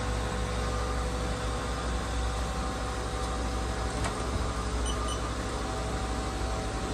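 Steady hum of a 2007 Haas SL-30T CNC lathe's running machinery, with a few faint steady tones, as its tailstock is driven forward. A faint click comes about four seconds in.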